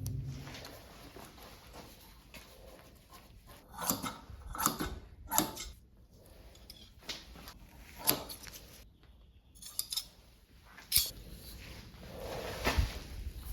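Intermittent short scrapes and clicks of hand tools at work on a fiberglass surfboard laminate, about half a dozen sharp ones spaced irregularly, over a low steady background.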